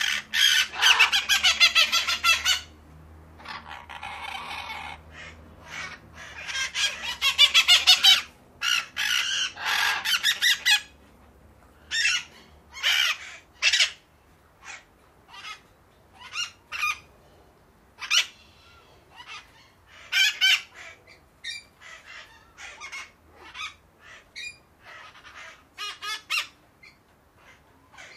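Parakeets squawking harshly and angrily. Long runs of rapid, rasping calls fill the first ten seconds or so, then give way to scattered short squawks.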